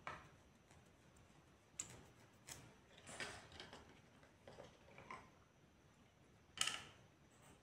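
A few faint clicks and taps from painting tools being handled on a hard counter, with the sharpest tap near the end.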